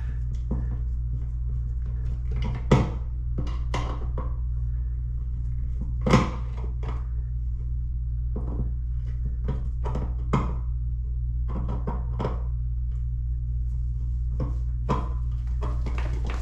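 Hand tools and light-switch hardware being handled: scattered light clicks and knocks, with two louder knocks about three and six seconds in, over a steady low hum.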